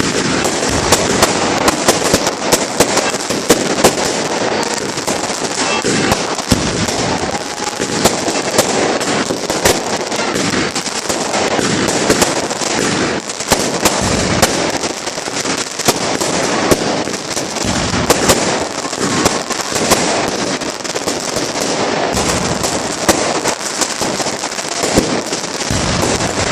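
Fireworks display: a dense, continuous barrage of bangs and crackling, with many sharp reports following one another throughout.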